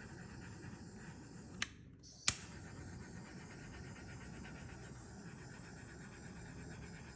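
Small handheld blowtorch running with a steady hiss as it is passed over wet pour paint to pop surface bubbles, with two sharp clicks around two seconds in.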